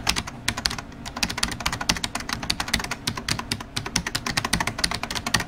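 Rapid, irregular clicking, about ten clicks a second, like fast typing on a keyboard. It cuts off suddenly at the end.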